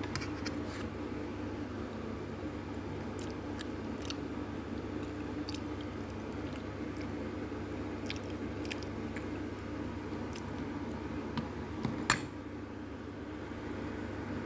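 A metal fork clicking and squishing on a plate as it cuts into and lifts pieces of sauced fried tempe: scattered faint clicks, with one sharper clack about twelve seconds in. A steady low hum runs underneath.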